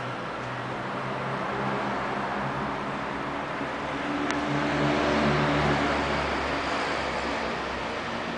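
Street traffic below: a steady wash of road noise with a low engine hum, swelling as a motor vehicle passes about four to six seconds in.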